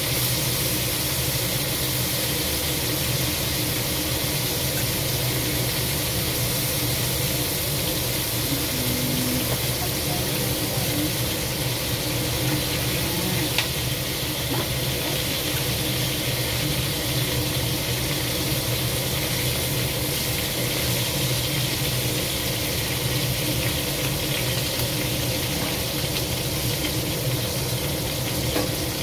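Crab legs and shrimp sizzling in hot oil in a wok, a steady hiss throughout, over a steady low hum.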